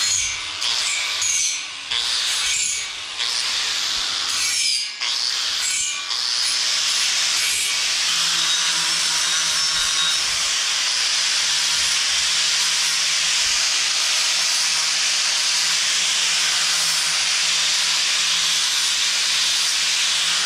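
Angle grinder with an abrasive disc grinding steel square tubing: a high, rushing grinding noise. For the first six seconds it comes in short passes with brief breaks, then it turns into one continuous grind.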